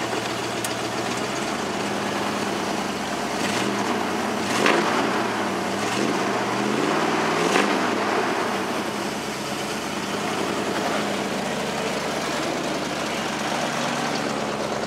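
Ford F-150 engine idling in gear, running smoothly now that a leaking brake booster check valve has been replaced and the vacuum leak is gone. The idle speed dips and rises slightly in the middle, with a few faint clicks.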